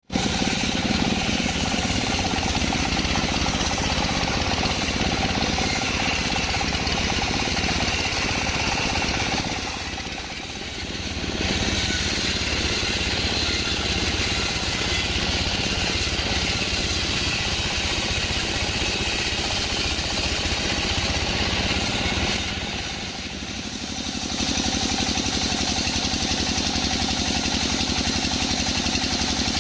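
Sawmill band saw running and cutting through a mahogany log, a loud steady machine noise that eases off briefly about ten seconds in and again a little after twenty seconds.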